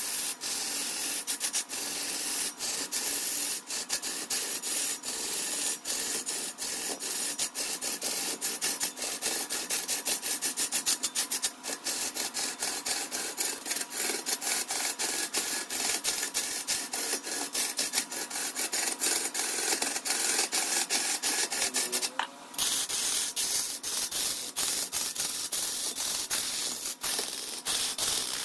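Wood being turned on a lathe: a tool scraping against the spinning workpiece, heard as a dense run of rapid clicks and rasping, with a short break a little past two-thirds of the way through.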